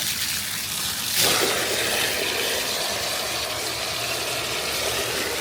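Strong water flow rushing steadily from the outlet hose of a PANRANO submersible sump pump as it drains the water, growing louder about a second in.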